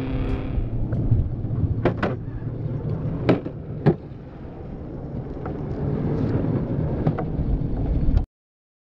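Skateboard wheels rolling on a concrete bowl, a steady low rumble, with four sharp clacks of the board between about two and four seconds in. The sound cuts off suddenly near the end.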